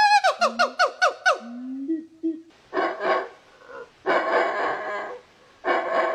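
Monkey calling: a high held note breaks into a quick run of about five short falling squeals, then three harsh, raspy screeches.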